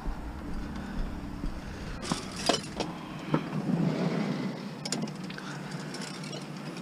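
A car drives past on the street with a low rumble. Then come a few sharp clicks and knocks as stripped water-dispenser parts (compressor and wiring) are handled at a car's open door.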